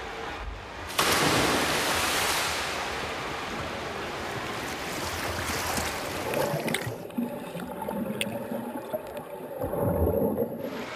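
A swimmer entering a pool with a sudden loud splash about a second in, then splashing front-crawl strokes. Near the end the sound turns muffled, as heard underwater, with low bubbling.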